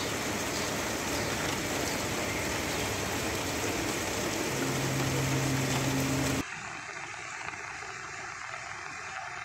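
Heavy rain falling steadily on a flooded street, with a low steady tone sounding for about two seconds near the middle. About six seconds in it cuts abruptly to a quieter wash of water on a flooded road.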